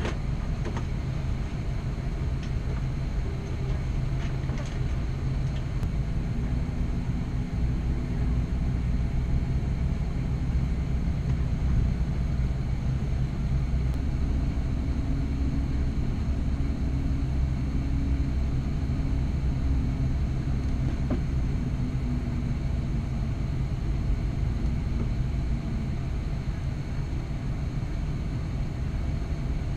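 Steady low rumble inside an Airbus A330-200 cabin as the airliner is pushed back along the ramp, with a faint hum that comes in about six seconds in and fades near the end.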